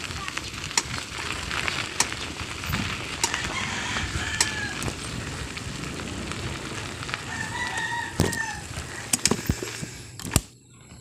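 A rooster crowing in the background, twice: a short call and then a longer one about a second long. Scattered clicks and knocks are heard, and a sharp knock near the end is the loudest sound.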